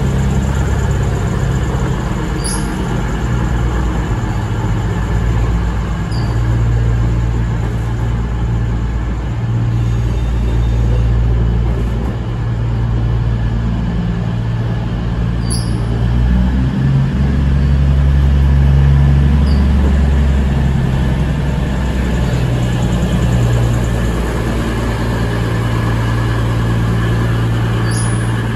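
CrossCountry Voyager diesel multiple unit's underfloor diesel engines idling at the platform in a steady low hum, the engine note shifting and growing a little louder a few seconds past the middle.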